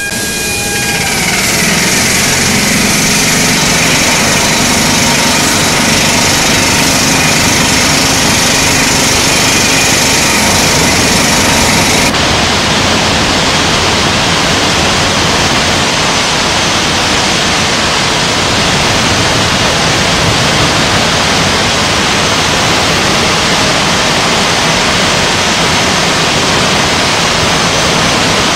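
Blast furnace taphole being opened: a loud, steady roar of the taphole machine and of hot gas, molten iron and sparks blowing out. The hiss at the top end dulls about twelve seconds in.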